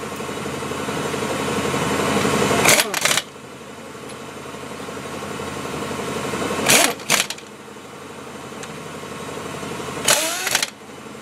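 Large pneumatic impact wrench tightening the lug nuts on a heavy truck's front wheel. Three times, a steady whirr grows louder as a nut spins on, then the wrench hammers briefly as the nut seats.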